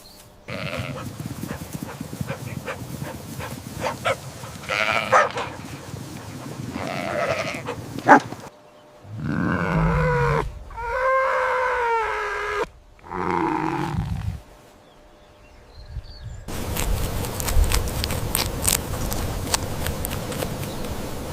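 Farm animals calling, with a few long calls that waver in pitch in the middle. The last few seconds are a steady hiss.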